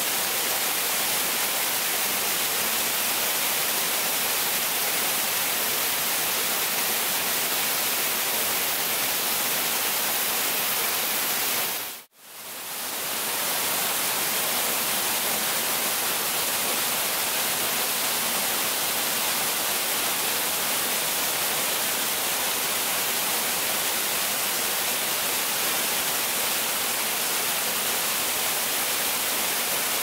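Waterfall pouring, a loud, steady rush of falling water. It drops out briefly about twelve seconds in and comes straight back.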